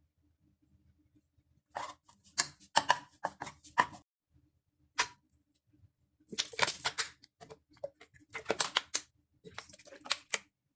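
Kitchen utensils clattering: quick runs of sharp clicks and knocks in several bursts, with short gaps between them.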